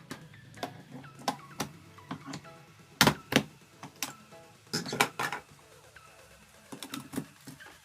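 Sharp plastic clicks and knocks of USB plugs being pushed into a charger and a mini USB meter: a pair about three seconds in, a cluster around five seconds, and a couple more near the end. Faint background music plays underneath.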